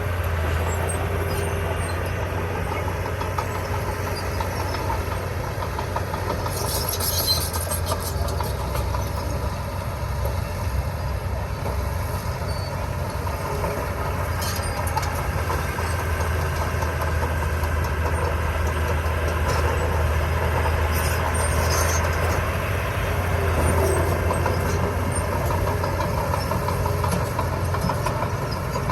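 Diesel engine of a small Komatsu D20P bulldozer running steadily with a deep drone, with a few brief clanks a few seconds apart.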